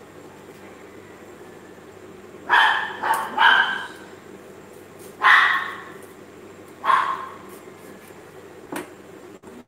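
A dog barking: a quick run of three barks, then two single barks a second or two apart, over a steady background hum.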